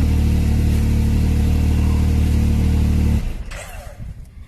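Can-Am Maverick X3 Turbo RR's turbocharged three-cylinder engine running steadily, then stopping abruptly about three seconds in.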